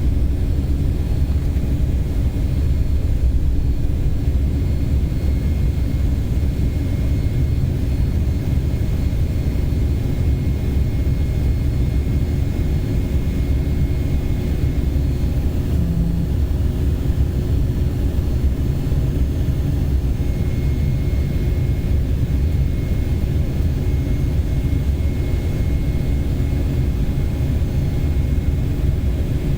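Airliner taking off, its engines running at high power: a loud steady rumble with a faint steady whine above it.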